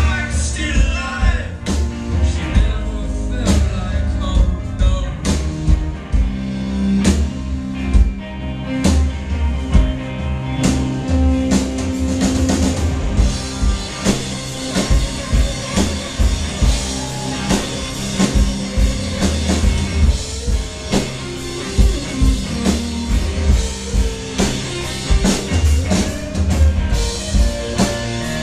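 Live rock band playing: drum kit with a steady beat, keyboard and guitar, with a singer's voice over them.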